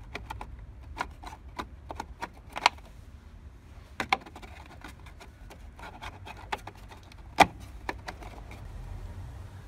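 Scattered light clicks and knocks of hand work in a car's engine bay, with three louder knocks spread through.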